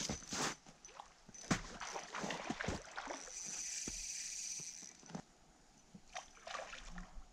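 Water splashing and sloshing as a hooked rainbow trout thrashes in shallow river water. There is a steady high whir for about two seconds in the middle.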